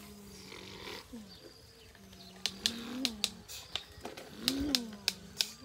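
A low hummed voice-like drone, its pitch swelling up and down several times, as of someone mouthing a truck engine noise during play with a toy dump truck. About eight sharp clicks sound through the second half.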